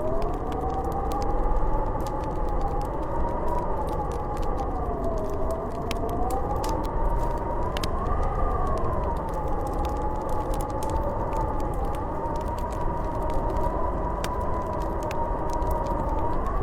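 Snowstorm wind howling, a whistling tone that slowly rises and falls over a steady rush of wind, with faint fire crackles scattered through it.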